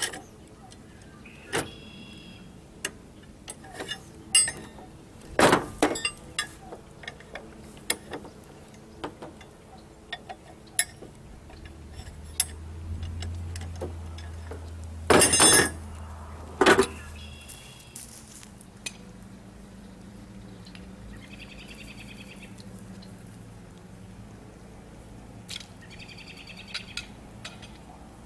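Irregular metal clanks and knocks as a steel log-handling tool is moved about and set down in the steel bed of a utility vehicle, with a few loud clanks and several short bird calls.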